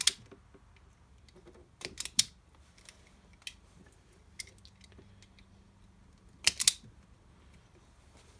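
Hand crimping pliers clicking and snapping as a cable lug is crimped onto a wire: a few sharp clicks, in a cluster about two seconds in and a double snap near the end.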